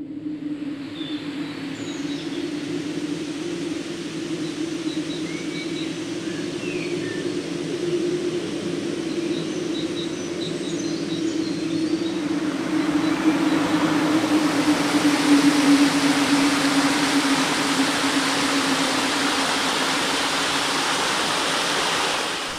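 Waterfall rushing: a steady wash of water noise over a low drone, swelling louder a little past halfway. A few faint chirps show through it in the first half.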